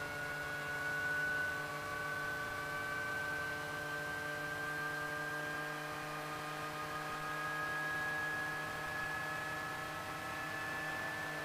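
Eurocopter AS350 B2's Turbomeca Arriel turboshaft engine whining, heard from inside the cabin, its pitch rising slowly and steadily as the engine and rotor are brought up toward flying rpm after start-up.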